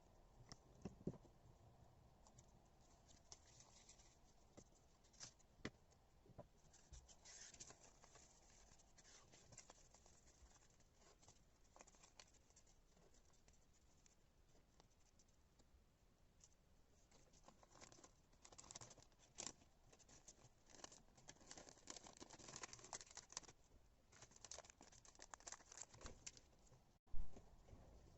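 Faint handling of washi tape and paper: scattered small clicks, taps and rustles. They come thicker in the second half, with one sharp click near the end.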